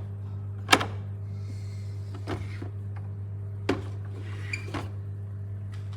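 A steady low hum with several even overtones, and a few sharp clicks and knocks, the loudest about a second in.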